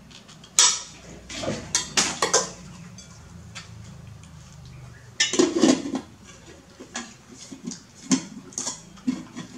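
Metal ladle clinking and scraping against an embossed silver pot and its lid as rice is scooped out and served, in a run of short sharp clinks with a dense cluster about five seconds in.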